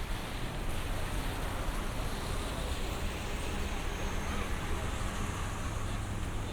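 Steady city street traffic: a low rumble and hiss of passing cars and buses.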